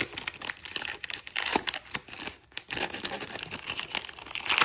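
Crinkling of a plastic trading-card pack wrapper as it is handled and opened, with many small irregular crackles.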